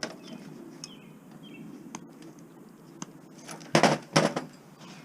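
A quick cluster of loud knocks and clatters from scrap parts being handled while an ozone generator is taken apart. Before them, faint high chirps over a low background hum.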